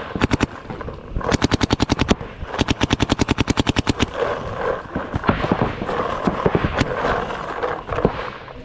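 Planet Eclipse CS3 electronic paintball marker firing fast strings of shots close to the microphone, about twelve a second, two long strings in the first half followed by scattered single pops.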